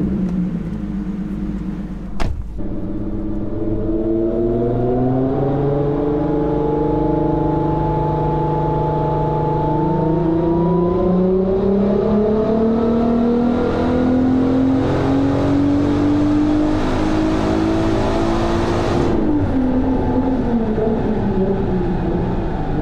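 Turbocharged 3.0-litre VR6 (R32 engine with R30 crank) of a Golf 4 doing a full-load dyno pull, heard from inside the cabin. The engine note climbs steadily for about fifteen seconds, then drops away as the run ends. There is a single sharp click about two seconds in.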